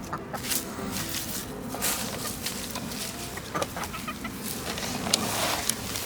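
Domestic chickens clucking, with scattered short clicks and taps among the calls.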